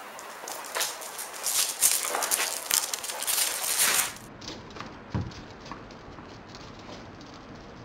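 A dog's paws and claws clicking and scrabbling on paving stones as it runs and jumps after a ball, dense and loud for the first four seconds, then lighter. A single dull thump about five seconds in.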